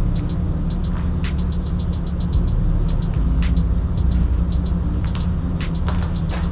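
Jeep plow truck's engine running steadily while plowing snow, with a quick run of light clicks and a few sharper ticks over the rumble.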